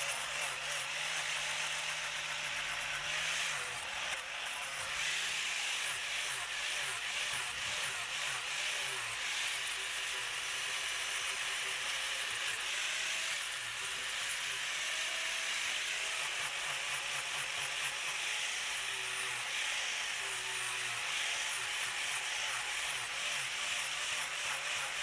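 Handheld power tool sanding carved pine wood, a steady high whirring hiss.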